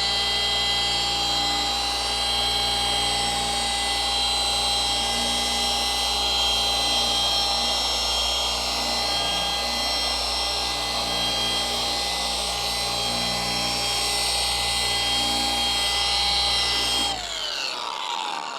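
Milwaukee electric polisher running steadily at medium speed, its pad buffing cutting compound into oxidised, sun-damaged paint, with a steady motor whine. About seventeen seconds in the motor spins down, its pitch falling away.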